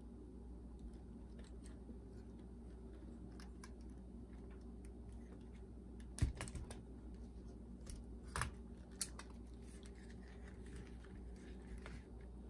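Light clicks and taps of small plastic and metal parts being handled while working inside a boombox's cassette deck, with a louder knock about six seconds in and two smaller ones a couple of seconds later. A steady low hum runs underneath.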